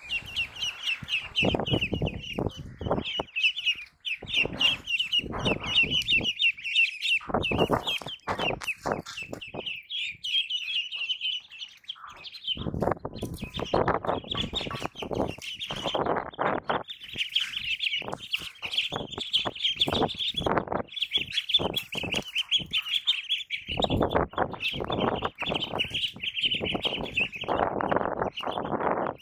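A group of ducklings peeping almost without pause in a dense, high chorus that breaks off briefly about twelve seconds in. Repeated bursts of knocking and scuffling noise run through it.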